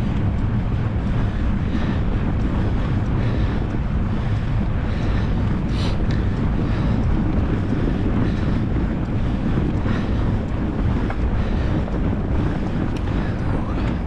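Steady, heavy wind rumble buffeting an action camera's microphone, with one sharp click about six seconds in.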